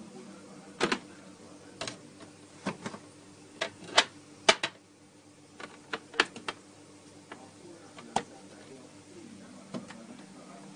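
A pot of thick meatball curry simmering under a glass lid, with about a dozen sharp, irregular ticks and pops as bubbles burst and spatter against the lid, over a faint low hum.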